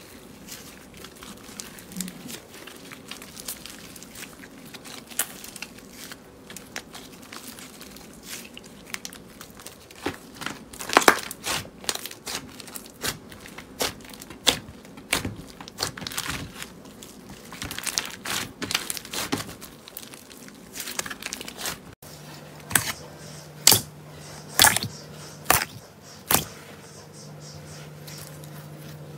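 Hand-worked slime crackling and clicking as it is stretched and squeezed, a dense run of small pops. About 22 s in, a different slime gives louder single pops roughly once a second over a faint steady hum.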